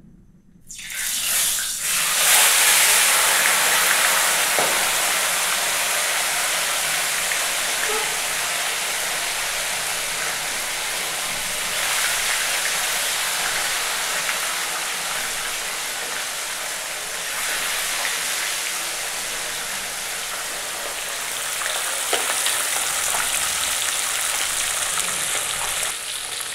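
Small fish deep-frying in hot oil in a kadai. A loud sizzle breaks out about a second in as they go into the oil, then settles into a steady sizzle that slowly eases.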